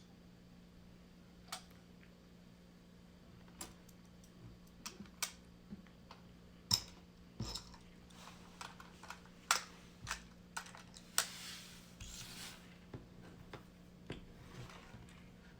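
Small plastic toy cars and playset pieces being handled, giving scattered light clicks and taps at no steady rhythm, with a brief scrape about eleven seconds in. A faint steady hum runs underneath.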